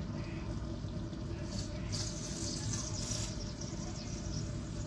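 Cap of a bottle of home-fermented kefir soda being eased open, the pressurised carbonation escaping in two short hisses; the soda is strongly over-carbonated, close to foaming out.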